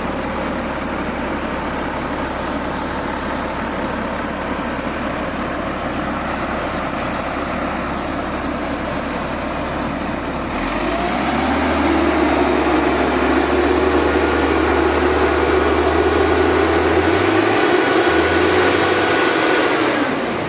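Truck engine running while parked: a steady idle for about ten seconds, then it steps up to a louder, faster running with a rising whine, holds there, and drops back just before the end.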